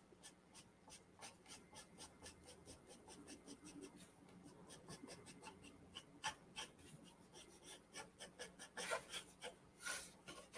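Pencil shading on drawing paper: a faint run of quick, short scratching strokes, about five a second, with a few firmer strokes near the end.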